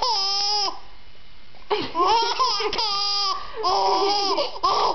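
Baby laughing in high-pitched bursts: one at the start, then after a pause of about a second, several more in quick succession.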